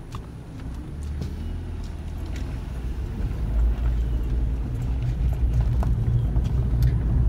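Low engine and road rumble heard from inside a moving car, growing steadily louder, with a few light clicks.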